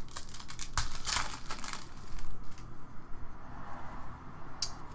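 Rustling and crinkling of trading cards and foil card packs being handled, a run of short crinkles and slides in the first two seconds and one brief crinkle near the end.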